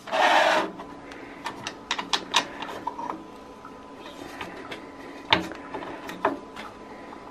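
Metal fence of a Güde GADH 200 jointer-planer being handled by hand: a short scraping slide at the start, then scattered light metal clicks and knocks.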